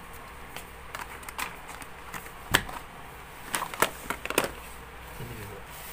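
Handling noise from cardboard phone boxes and a smartphone being picked up and set down: scattered light taps and clicks, the sharpest about two and a half seconds in and a few more around four seconds.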